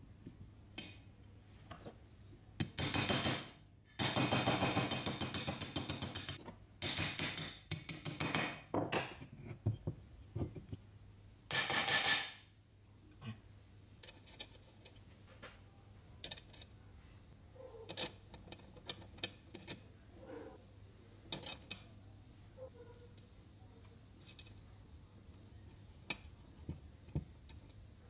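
Metal gearbox parts of an old electric chainsaw clinking and scraping as they are handled and fitted. Several longer bursts of clatter come in the first twelve seconds, then scattered light clicks and taps.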